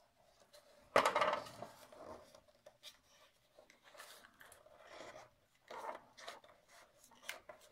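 Paper rustling and small clicks as glued cardstock is folded and pressed together by hand, with one sharp knock about a second in.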